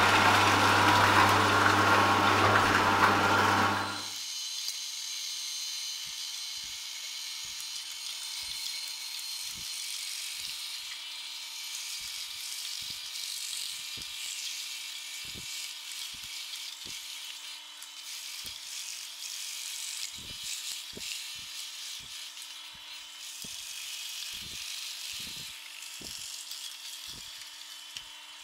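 Twin-gear and vertical slow juicers running and crushing carrots, with a loud steady low motor hum and grinding. About four seconds in it abruptly drops to a much quieter thin high hiss with faint scattered ticks.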